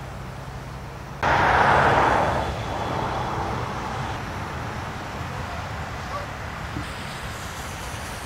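Outdoor road traffic noise from the adjacent highway, a steady rush of passing vehicles that swells abruptly about a second in and then eases off slowly.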